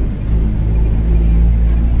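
Mercedes-Benz OF-1722M bus under way, its engine and cardan driveshaft giving a loud, steady low rumbling drone that swells a little a fraction of a second in: the driveshaft growling.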